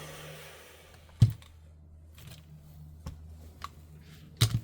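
A few sharp clicks and taps from small hard parts being handled, the loudest about a second in and a quick double click near the end, over a steady low hum.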